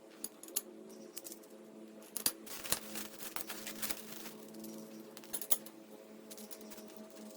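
Irregular metal clicks and clinks of hardware being handled and fastened while casters are fitted to a steel storage rack, over a steady hum.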